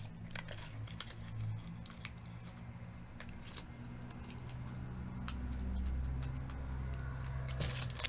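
Scattered light clicks, taps and scratches of small cosmetic boxes and plastic wrapping being handled.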